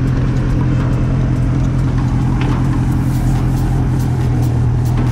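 Ferguson FE35 'Grey and Gold' tractor engine running steadily under the driver, as the tractor is put in reverse and backed up slowly. Light clicking rattles come in over the engine in the second half.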